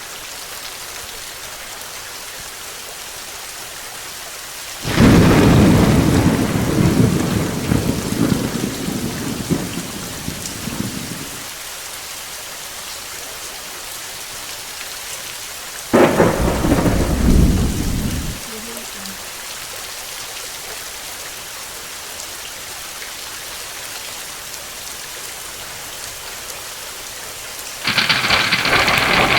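Steady rain falling, with two rolls of thunder: a long rumble from about five seconds in that dies away over some six seconds, and a sudden sharper clap about sixteen seconds in that rumbles for two seconds. Near the end a louder hiss sets in.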